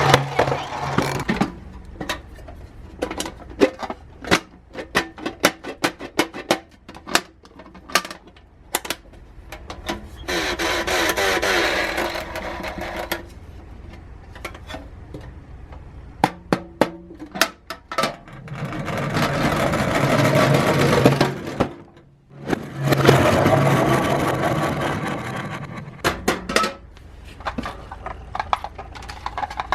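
Toy minicars being handled and rolled: many irregular sharp clicks and knocks, with three stretches of steadier rolling noise a few seconds each.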